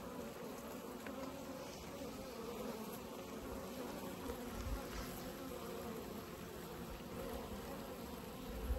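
A mass of honey bees in a screened shipping package buzzing, a steady, even hum of many bees with no break.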